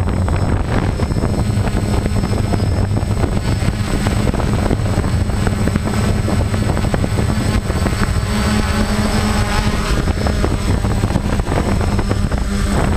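DJI Phantom quadcopter's electric motors and propellers running close to the on-board GoPro's microphone in flight: a loud, steady buzzing hum.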